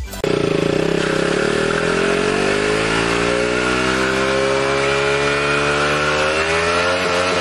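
Motorcycle engine revving. It starts abruptly, its pitch climbs over the first few seconds, then holds high and steady.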